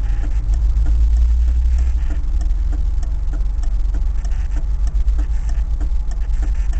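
Lada 2104's engine idling, a steady low rumble heard from inside the car's cabin. A faint regular tick comes about twice a second.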